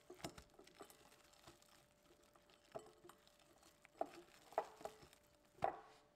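Salted, accordion-cut mini cucumbers being turned over by hand in a glass bowl: a handful of short knocks and taps as they bump the glass and each other, the loudest near the end, over a faint steady hum.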